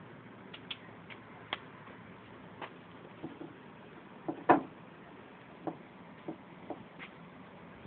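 About a dozen light, scattered clicks and taps, the loudest about four and a half seconds in, typical of a black powder rifle being handled.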